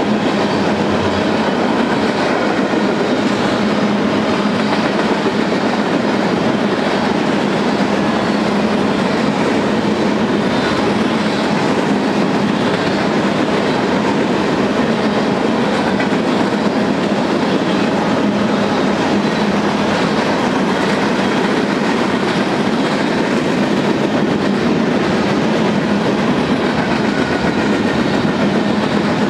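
Freight cars (tank cars, boxcars and covered hoppers) rolling steadily past: the steady noise of steel wheels running on the rails.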